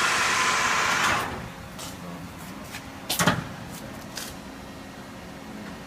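Lathe spindle drive running steadily, then cutting out about a second in and dropping away as the spindle stops. A few light clicks and one loud clunk about three seconds in follow, from the lathe's controls being worked.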